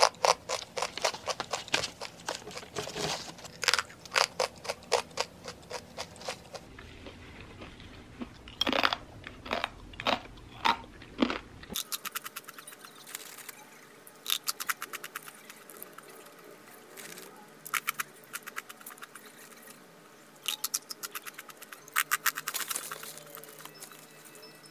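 Close-up crunching and chewing of a thin, hard whole-wheat protein chip studded with pumpkin and sunflower seeds. The crunches come thick and fast for about twelve seconds, then sparser and quieter.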